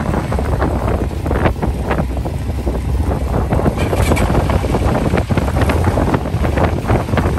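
Heavy wind buffeting the microphone over the running engines of off-road vehicles, among them a sport quad ATV rolling past. The noise is loud and constant, with gusty bursts throughout.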